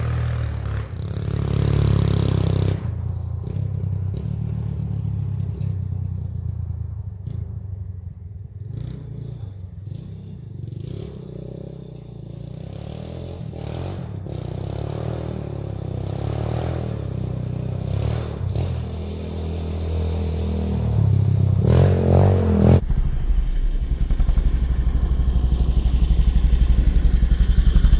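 1985 Honda ATC 200X three-wheeler's single-cylinder four-stroke engine under way on a ride, its pitch rising and falling with the throttle. It fades as the machine moves off around the middle, then grows louder as it comes back near the end.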